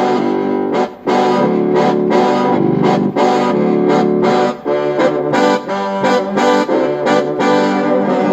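Banda-style brass samples played on a synthesizer keyboard: a brass section of trombone-like voices plays a run of short, rhythmic notes and chords.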